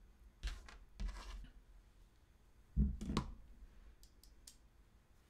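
Handling of small hardware and a screwdriver on a workbench cutting mat: a few brief scrapes and rustles, a dull knock near the middle as the screwdriver is picked up off the mat, then a few faint light clicks.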